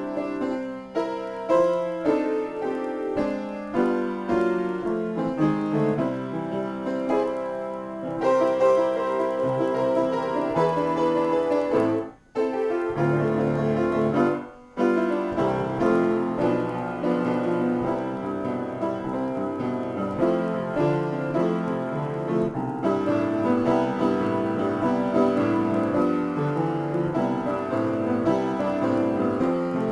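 Upright piano played in a free improvisation, a dense run of notes and chords. The sound cuts out suddenly twice near the middle, each time for a fraction of a second.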